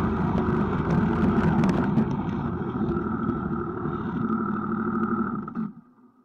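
Snowmobile engine running at a steady pitch, then cutting off abruptly near the end.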